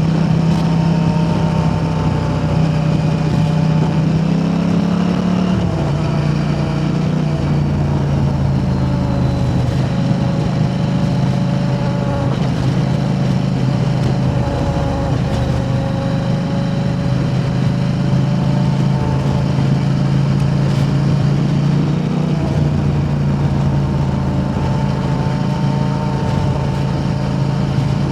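KTM 890 Adventure R's parallel-twin engine running steadily at low revs through an Arrow Race-Tech aftermarket exhaust, dipping slightly in pitch about six seconds in.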